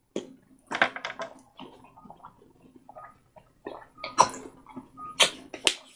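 Handling noises of a small plastic toy and its egg: a string of light clicks and rustles, uneven in timing, with a few sharper ones about a second in and again near the end.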